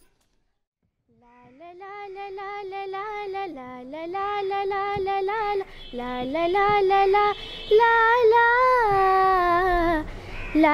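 Schoolgirls singing a patriotic song in Odia, starting about a second in with held, gliding notes.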